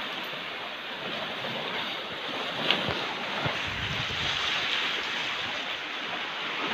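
Small waves washing over a stony shore, with wind buffeting the microphone. There is a single sharp click a little under three seconds in.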